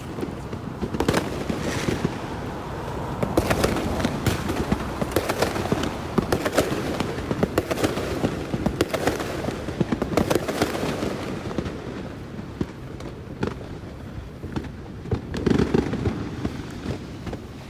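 Fireworks going off in rapid succession, dense crackling and banging that thickens through the middle and eases near the end, with another cluster of bangs about fifteen seconds in.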